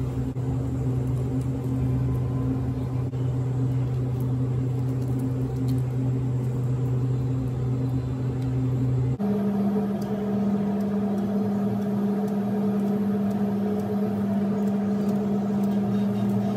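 A steady mechanical hum, like a running appliance motor, that jumps to a higher pitch about nine seconds in, with faint light ticks over it.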